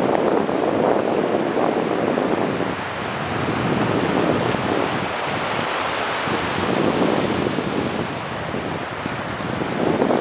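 Small ocean waves washing in over shallow sand, a steady rush that swells and eases, with wind on the microphone.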